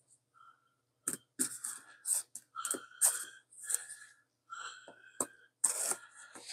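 Knife blade slicing through the plastic shrink wrap on a product box, the wrap crinkling, in a series of short scratchy strokes starting about a second in.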